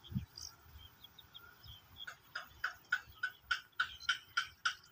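An animal calling a fast, even series of short clicking notes, about three a second, starting about two seconds in and growing louder. A few faint high chirps come before it.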